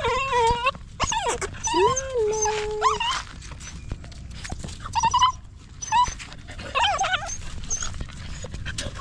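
Puppy whimpering and crying: a run of high, wavering whines, with one longer whine about two seconds in that rises and then holds steady, then more short cries after a brief lull in the middle.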